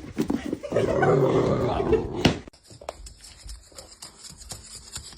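A dog vocalizing loudly for about a second and a half, ending in a sharp knock. The sound then drops off abruptly to a quiet stretch with faint ticks.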